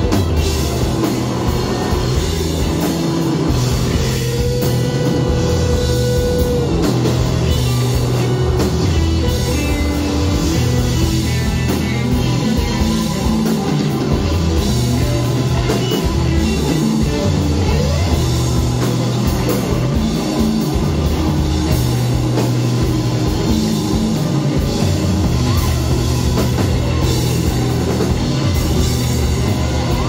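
A rock band playing live: electric guitars, keyboards and a drum kit with a heavy bass line, loud and continuous.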